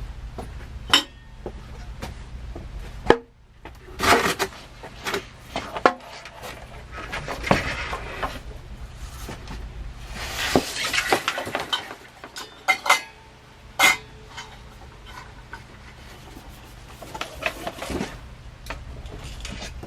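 Small metal hardware and tools clinking and knocking in irregular handling, with a sharp knock about three seconds in and a denser rattling clatter around ten seconds in, over a steady low hum.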